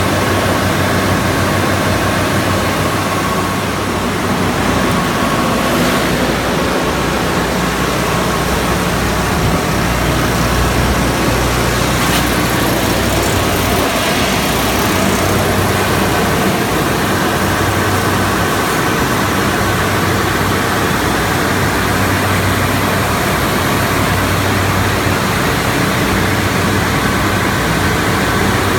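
Trielectron 20-ton aircraft ground air-conditioning unit running with both compressors engaged: a steady, loud machinery noise with a low hum and a faint high whine.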